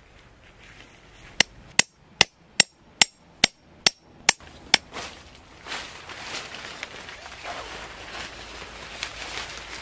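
A hammer driving a tent stake into the ground: about nine sharp, evenly paced strikes, roughly two and a half a second. After a short pause, tent fabric rustles as it is handled.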